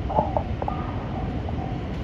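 Japanese level-crossing warning bell ringing rapidly and repeatedly, over the low rumble and sharp wheel clacks of a passing freight train.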